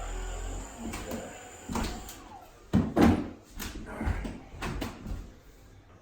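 A series of sharp pops and knocks from a chiropractic adjustment, about ten in all, loudest as a pair about three seconds in. Background music stops just under a second in.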